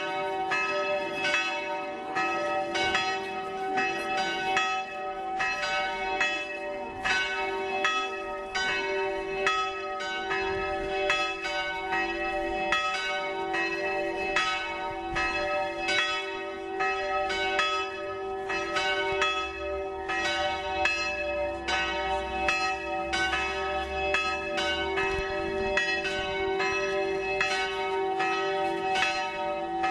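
Church bells ringing continuously, struck over and over in a steady rhythm, with the bells' ringing carrying on between strokes.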